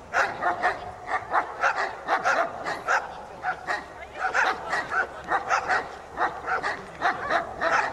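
Several dogs barking continuously, short barks coming about three a second and overlapping.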